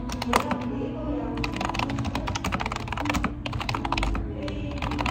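Fast typing on a computer keyboard, a dense run of quick key clicks, over background music.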